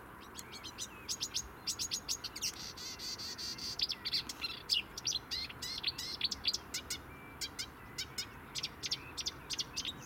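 A songbird singing unseen from dense bushes: a long, rapid run of short high chirps and trills with hardly a break, including a brief held, buzzy note about three seconds in.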